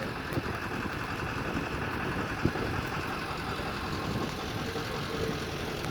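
Steady vehicle engine and road noise, with one sharp knock about two and a half seconds in.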